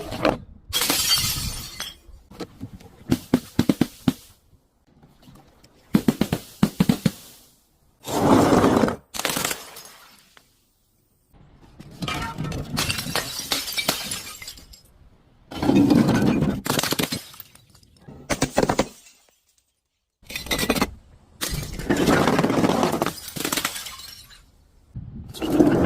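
Glass bottles and other crunchy objects being crushed and shattered one after another, about a dozen separate breaks, each a second or two of crunching and splintering with a short silence between.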